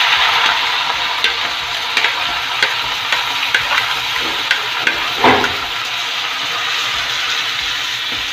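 Onion, ginger, green chilli and garlic paste sizzling in hot oil in a steel kadhai. A steel spoon clicks repeatedly against the plate and pan as the paste is scraped in, with one louder knock a little past the middle.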